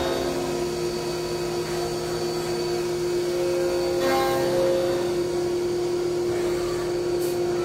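CNC machining centre milling clearance slots into the lifter bucket bores of an RB26 aluminium cylinder head under coolant spray: a steady machine hum with one constant tone, and a brief change in the cutting sound about four seconds in.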